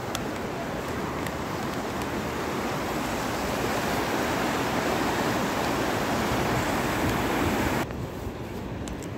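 Shallow mountain river rushing over stones: a steady, even roar of water that cuts off suddenly near the end, leaving quieter outdoor background.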